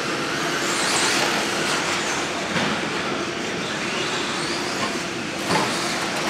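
Radio-controlled 2WD short course trucks racing on an indoor dirt track: motors whining in rising and falling sweeps as they accelerate and brake, over a steady noise of tyres on dirt.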